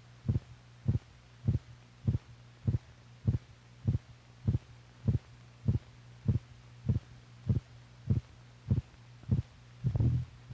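Recorded heartbeat: short, low thumps in a steady rhythm of a little under two beats a second, over a steady low hum. One beat near the end is longer and louder.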